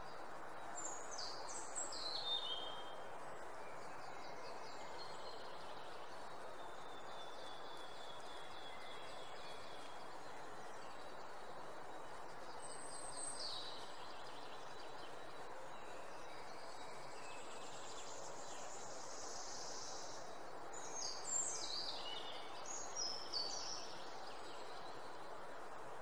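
Small birds calling in short, quick, descending high-pitched phrases, in clusters near the start, around the middle and near the end, over a steady background hiss of outdoor ambience.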